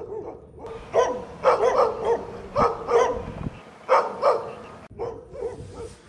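Two dogs barking in a string of short, repeated barks, coming thick in the middle stretch.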